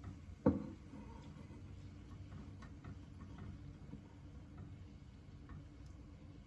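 A plastic rice paddle knocks once sharply against a non-stick frying pan about half a second in, then light scattered ticks as steamed glutinous rice is stirred into bubbling coconut-milk and palm-sugar syrup.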